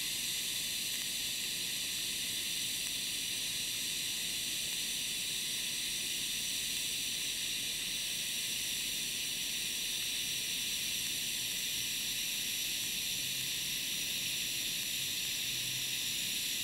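TIG welding arc on clean mild steel giving a steady, even hiss with faint high tones while filler rod is fed into a fillet joint.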